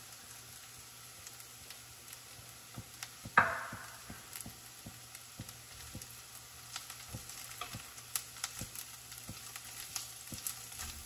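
Chopped vegetables and onions sizzling in oil in a stainless steel frying pan while a silicone spatula stirs them, giving soft scrapes and small taps against the pan. One sudden loud burst stands out about three and a half seconds in.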